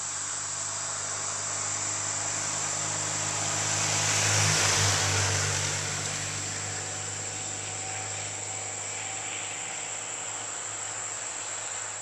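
A 1994 BMW R100R's air-cooled boxer twin passing by, swelling to its loudest about four to five seconds in and then fading away, over a steady high-pitched insect drone.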